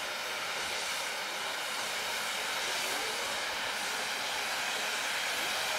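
Ground firework fountains hissing steadily as they spray sparks.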